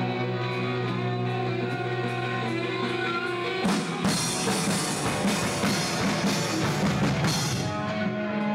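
Live punk rock band: electric guitar and bass held ringing in sustained tones, then a flurry of crashing drums and cymbals from about four seconds in, with the sustained guitar tones carrying on near the end.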